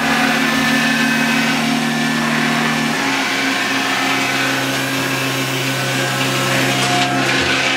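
1992 Mori Seiki MV35 vertical machining center running with a steady machine hum, whose pitch steps down about three seconds in.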